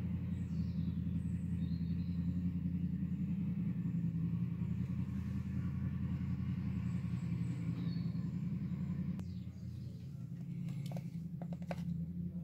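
A steady low hum with a buzzing tone, easing off after about nine seconds. Near the end come several sharp clicks and knocks as the plastic K'NEX light module is picked up and handled.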